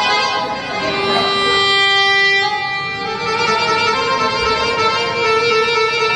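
Arabic baladi music with a violin and accordion melody of long held notes.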